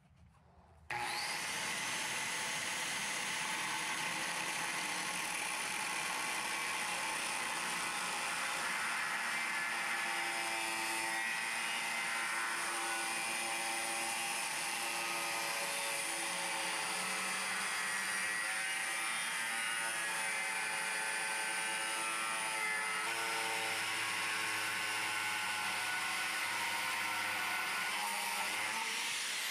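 Corded angle grinder running with an abrasive disc against steel angle iron. It starts about a second in, then runs steadily with a high whine, its pitch wavering slightly as it works the metal.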